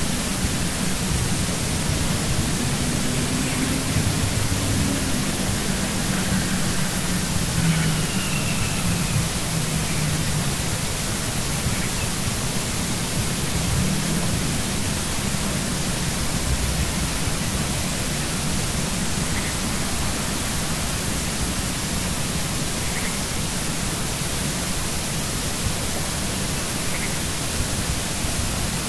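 Steady hiss of noise, like static, even across all pitches, with a faint low hum underneath.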